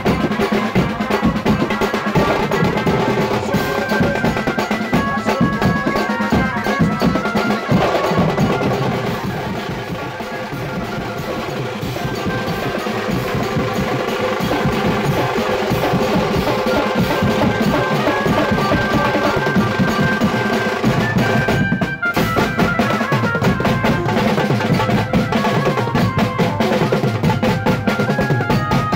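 Live banjo-party band: a set of metal-shelled drums played fast with sticks in rolling patterns, with cymbal crashes and a large bass drum, over a keyboard melody. The beat breaks off briefly about two-thirds of the way through, then picks up again.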